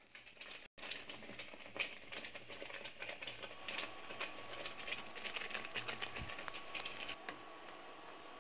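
Thick tomato sauce simmering in a pan, its bubbles bursting in a dense run of small, irregular pops and spatters. The popping stops abruptly about seven seconds in, leaving a faint steady hiss.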